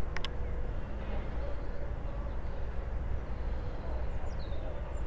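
Steady low outdoor background rumble, with a brief click just after the start and faint bird chirps about four seconds in.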